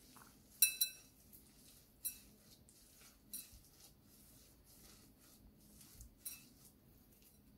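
Urad dal husks and flour being mixed by hand in a glass bowl, with a faint rustle and a handful of sharp clinks against the glass. The loudest clinks are a quick pair under a second in, and single ones follow about every one to three seconds.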